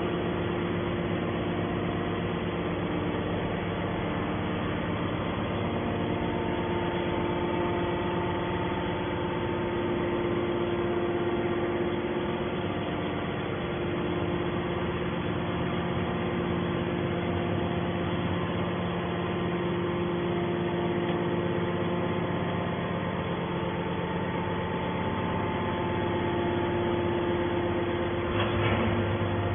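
Heavy scrap-metal baling machinery running with a steady mechanical drone of several fixed tones; the low drone swells briefly near the end.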